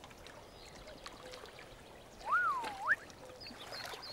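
Quiet river ambience with faint water lapping and trickling. About two seconds in, a single fluty whistle dips and then rises again, and small high chirps follow near the end.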